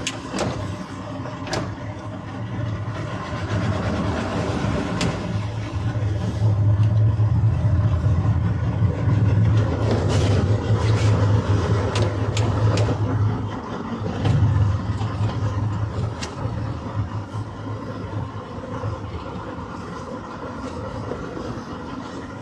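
Outboard motor of a small center-console boat running at low speed under tow load. Its low rumble grows louder about six seconds in, eases back after about thirteen seconds with a brief surge just after, and a few sharp clicks sound over it.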